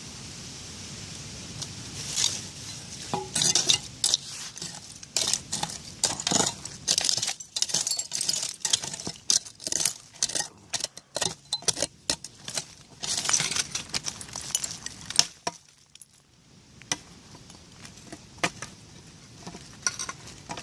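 Digging and raking through broken glass and debris in an old bottle dump: a dense run of sharp clinks and scrapes of glass and metal, dying away about fifteen seconds in, with a few more clinks near the end.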